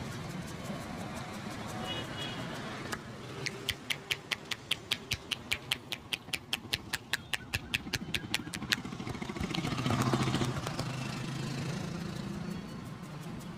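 A quick, even run of sharp hand slaps, about five a second for roughly five seconds, as a barber drums his hands on a customer's head in a massage. Street traffic runs underneath, and a vehicle swells past about ten seconds in.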